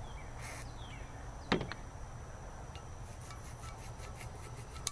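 A brief spray of WD-40, a single knock, then a toothbrush scrubbing grime off a Honda F22B1 VTEC cylinder head in quick short strokes, about four or five a second, that start about three seconds in.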